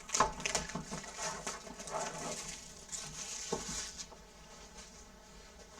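Crinkling and rustling of packaging as a sealed box of trading cards is opened and handled, a quick run of crackles that dies down to faint handling near the end.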